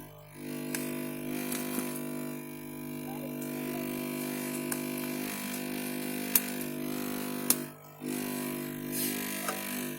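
Steady hum from running equipment, with a few sharp clicks.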